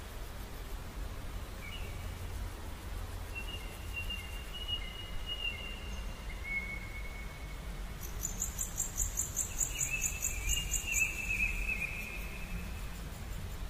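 Grassland wildlife ambience: thin, steady whistled calls lasting several seconds, a fast pulsing high trill for about three seconds past the middle, and a low rumble underneath.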